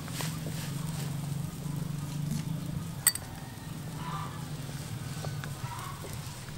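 A wok of soup boiling hard over a fire, with a steady low hum underneath. A metal spoon clinks once, sharply, against a ceramic seasoning bowl about three seconds in.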